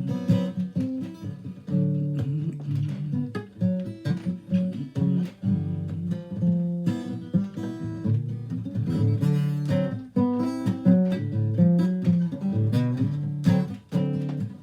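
Acoustic guitar played without singing: a run of strummed and picked chords.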